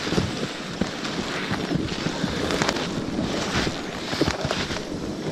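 Wind buffeting the microphone, with irregular crunching of footsteps through snow and dry brush.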